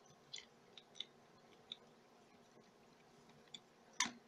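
Faint, scattered small clicks of plastic and metal parts as the rear truck of an HO scale model locomotive is handled and fitted against the chassis: about six light ticks, with a sharper click near the end.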